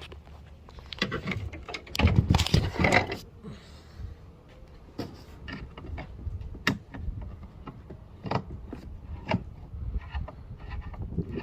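Hands working on a plastic center console piece: a burst of rustling and knocking between about one and three seconds in, then scattered light clicks and taps as screws are worked out of the plastic.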